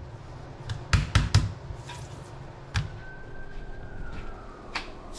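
Light taps and knocks of kitchen handling: three quick ones about a second in, then single knocks near the three-second mark and near the end, over a faint steady hum.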